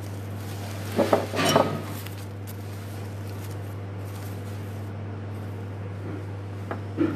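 A short clatter of things handled on a tabletop, a few quick knocks with some rustling, about a second in, over a steady low hum.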